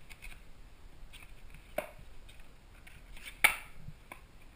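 Cardboard camera box being opened and handled: light scraping and paper rustling, with a sharp snap about two seconds in and a louder one about three and a half seconds in.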